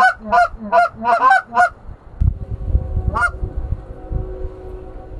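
Canada geese honking: a quick run of loud two-note honks in the first two seconds, then one more about three seconds in, followed by a low rumble.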